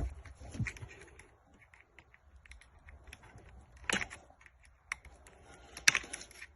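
Small plastic clicks and rattles from a car door lock assembly being handled and its plastic clip tabs pulled out, with sharper clicks at the start, about four seconds in and near the end.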